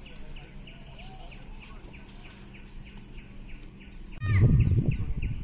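Birds chirping outdoors: a steady run of short high chirps, about four a second, then a few louder arching calls. A low rumble starts about four seconds in, like wind on the microphone.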